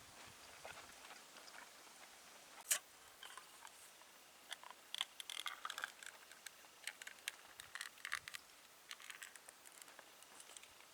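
A sharp click about three seconds in, then a run of small irregular clicks and crackles, like objects being handled at close range.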